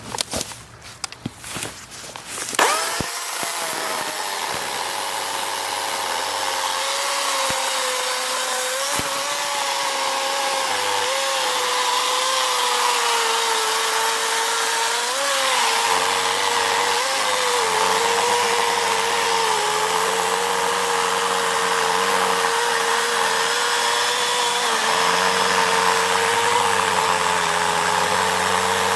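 DeWalt cordless electric chainsaw starting with a sudden whir a couple of seconds in, then running steadily with a high whine. About halfway through the pitch drops slightly and stays lower as the chain loads up cutting into wood.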